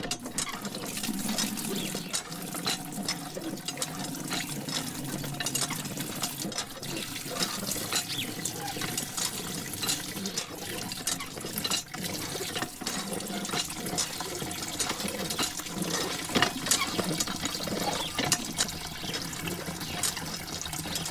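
Water pouring from a thin plastic tube and splashing into a small toy tank car and a shallow pool, with many light clicks and ticks.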